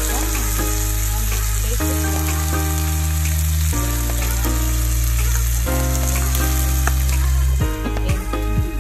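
Pork steaks sizzling and frying in butter in a pan, a steady crackling hiss. Background music with sustained bass chords that change about every two seconds plays over it.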